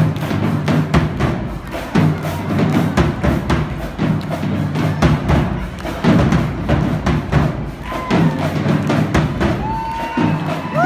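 A marching-style percussion band playing a driving beat on bass drums and other drums, a dense rhythm of hits. Near the end a few shrill whoops from the audience start over the drumming.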